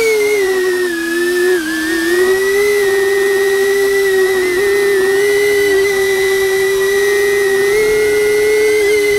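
DJI Avata FPV drone's motors and propellers whining at a steady pitch, heard close up from a camera mounted on the drone's back; the pitch sags slightly about a second in, then holds with small wobbles as the throttle shifts.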